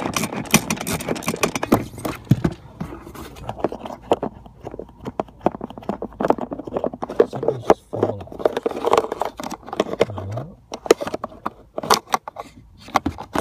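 Screwdriver turning out the single screw that holds a Ford heater fan speed resistor, then clicks and scrapes of plastic as the resistor is worked out of the heater housing by hand. Many short, irregular clicks and scrapes.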